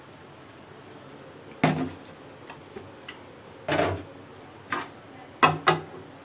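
Kitchen clatter: about five sharp knocks of hard kitchenware being handled, the first ones a second or two apart and a quick pair near the end.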